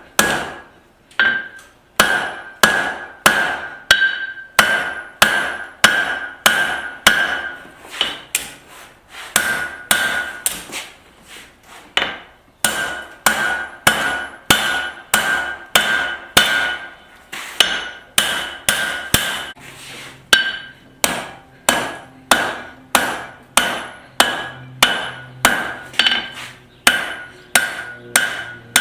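Hand hammer blows on hot steel over an anvil, a steady run of about two to three strikes a second, each ringing briefly, with a couple of short pauses; this is the boss area of a pair of tongs being forged down.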